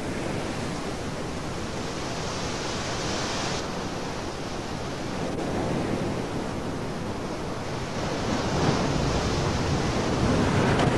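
Atlantic surf breaking on the shore, a steady wash of waves that grows a little louder in the second half.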